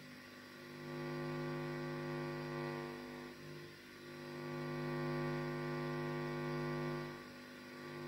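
50 Hz mains hum played through a Marantz CRS-8000 receiver's speakers, induced into its circuits by the stray magnetic field of a mains transformer held close to the boards. The hum swells about a second in, dips briefly, swells again, then fades near the end as the transformer's position changes.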